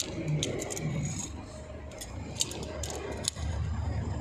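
Riveted galvanized steel bracket being flexed and handled by hand: scattered sharp metallic clicks and rattles as its riveted pivot joints move and the parts knock together. A low steady rumble runs underneath and grows louder about three seconds in.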